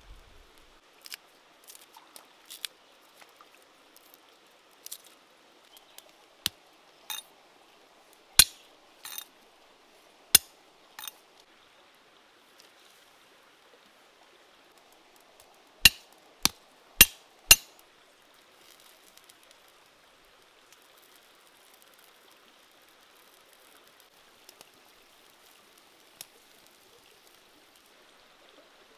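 Cooking over a wood fire: irregular sharp pops and clinks over a faint steady hiss. The loudest are four in quick succession about halfway through, and after that only the faint hiss with an odd click.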